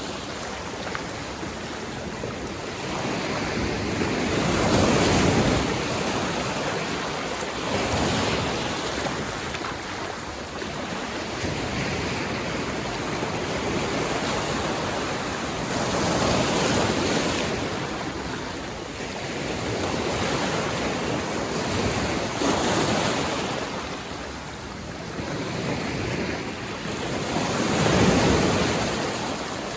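Ocean surf: waves breaking on a sandy beach, the rushing wash swelling and ebbing about five times, loudest near the end.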